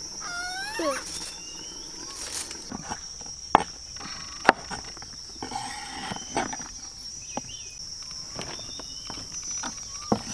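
Insects droning steadily at a high pitch, with two sharp knocks about a second apart a few seconds in and a few fainter knocks.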